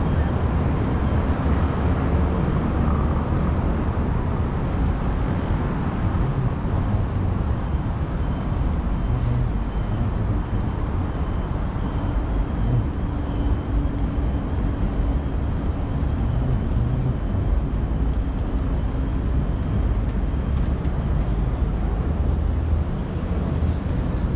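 Steady city road traffic: a continuous rumble of motor vehicles running along a street.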